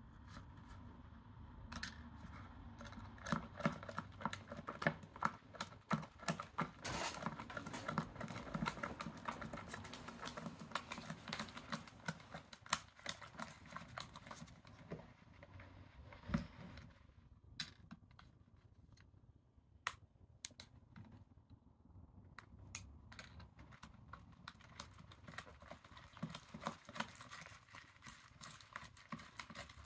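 Wooden popsicle stick stirring thickening glue slime in a thin plastic tub: a quick, irregular run of small clicks and taps of the stick against the plastic, thinning out for a few seconds past the middle before picking up again.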